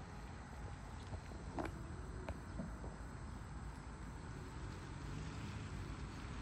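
Outdoor ambience: a steady low rumble with a couple of faint knocks about one and a half and two and a half seconds in.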